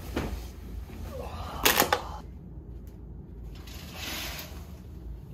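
Hotel blackout curtains being pulled open: a short, loud clatter of the runners along the curtain track a little under two seconds in, then a softer swish of the heavy fabric, over a low steady hum.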